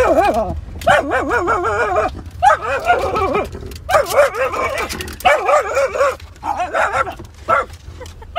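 A dog howling and whining in a string of wavering, warbling calls, about a second each at first and shorter and choppier toward the end. A steady low rumble of the car runs underneath.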